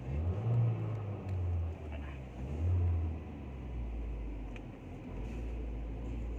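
Car engine revved in short blips, its pitch swelling up and dropping back several times, then settling to a steady idle.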